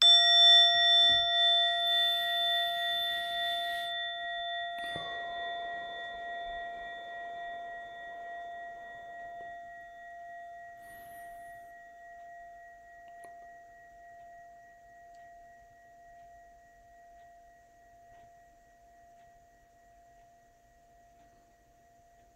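A meditation bell struck once, ringing with a clear tone and several higher overtones that fade slowly until nothing is left, about sixteen seconds later. It signals the end of a mindfulness exercise.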